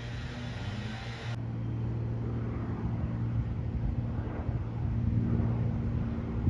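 Low, steady drone of a propeller aircraft flying over, growing gradually louder as it approaches.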